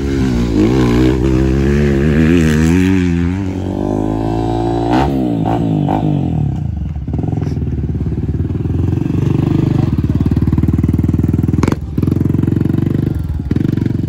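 Motocross dirt bike engines: for the first seven seconds or so the revs rise and fall again and again, as on a twisty track section. After that a dirt bike runs at a steady pitch close by.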